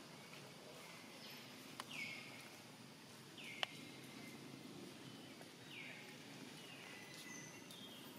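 Faint outdoor ambience with a bird's short high call, falling in pitch, repeated several times. Two sharp clicks come in between, the louder one about three and a half seconds in.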